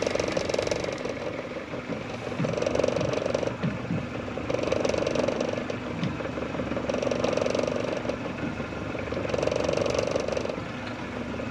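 A fishing reel being cranked in short, evenly spaced bursts, about a second of whirring every two seconds, as a lure is worked and retrieved from a boat. A steady low hum runs underneath.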